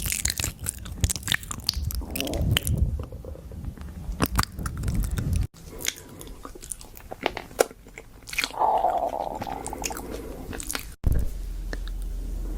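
Close-up chewing and crunching of crunchy food: dense rapid crackles from biting and chewing. It breaks off suddenly twice, about five and a half seconds in and again near the end.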